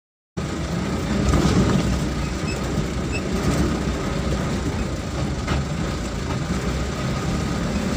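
Vehicle driving over a rough dirt track: a steady low engine and road rumble with knocks and rattles from the body and load. It cuts in abruptly just after the start.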